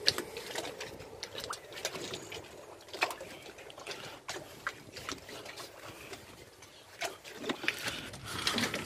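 Scattered light knocks and clicks over faint sloshing of harbour water against a moored boat's hull.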